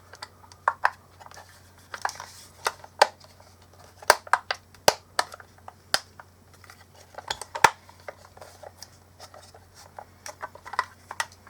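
Irregular sharp clicks and taps of small plastic parts being handled and pressed together while a mini Bluetooth speaker's housing is reassembled, with its clips being pushed into place.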